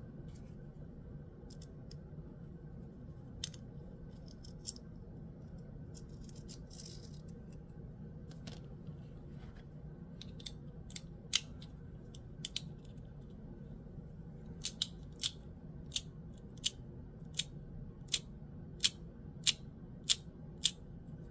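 Gao Studio Magnetic Master 2.0 magnetic haptic-coin fidget clicking as its magnetic parts snap together. A few scattered clicks come first, then a steady run of sharp clicks about one and a half a second in the last part.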